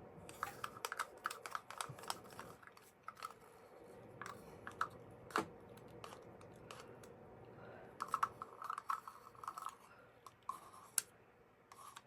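Quick light clicks and taps of plastic craft supplies being handled on a work table, such as cups, bottles and stirring sticks, in two flurries: one in the first three seconds and another about eight seconds in.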